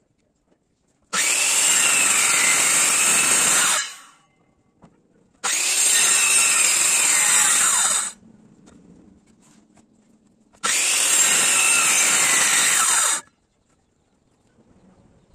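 Handheld electric circular saw cutting lengthwise along a teak beam, in three runs of about two and a half seconds each, each starting and stopping abruptly.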